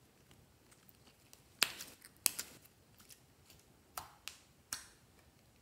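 Glossy slime being stretched and pressed by hand, giving a handful of sharp, wet clicks and pops from about a second and a half in until near the end.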